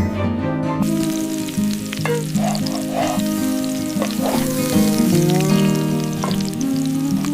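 Food sizzling as it fries in a pan, starting about a second in, over background music.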